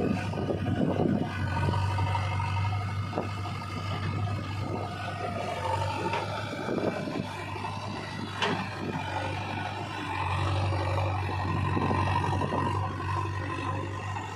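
Diesel engine of a heavy earth-moving machine running steadily, working harder twice and easing off between, with a few sharp knocks.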